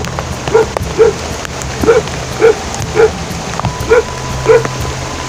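A dog barking repeatedly, about seven short, fairly high barks roughly half a second to a second apart.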